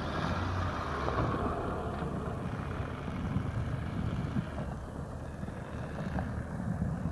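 Dodge Ram pickup engine running, a continuous uneven low rumble, with a band of hiss over it in the first second and a half.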